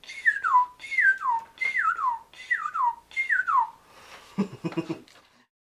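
A man whistling an imitation of a northern cardinal's song: five down-slurred whistled notes in a quick run, each sliding from high to low. A short low pulsing voice sound follows near the end.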